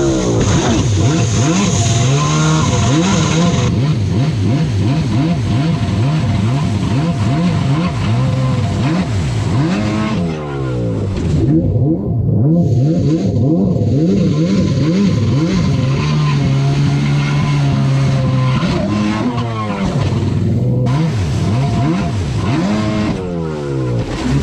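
Yamaha SuperJet stand-up jet ski engine revving up and down again and again as the throttle is worked through wake jumps, held at a steady pitch for a couple of seconds midway, over the rush and hiss of water spray.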